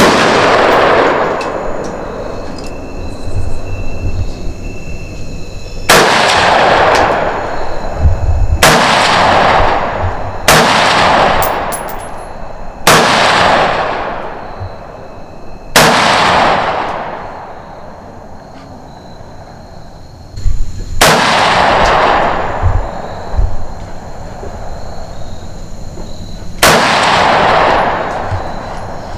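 Eight single gunshots fired at uneven intervals, one to six seconds apart. Each crack is followed by a long echo rolling away.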